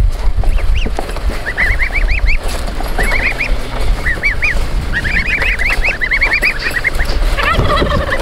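Goslings peeping in quick runs of short, high, up-and-down calls, over a low steady rumble.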